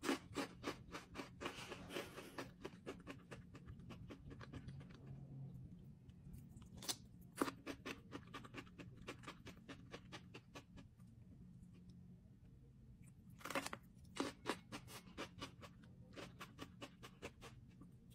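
Close-up chewing of crunchy food: a cracker chip and raw vegetables dipped in hummus, in runs of sharp crunches with short pauses between bites.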